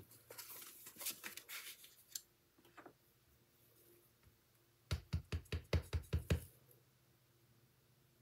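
Paper handling and rustling, then a clear acrylic stamp block tapped quickly about eight times on a Memento ink pad to ink the stamp.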